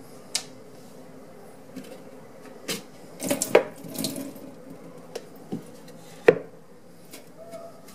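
A wet sharpening stone on a wooden board being lifted and cleared away at a sink: scattered knocks and clatter, the loudest about six seconds in.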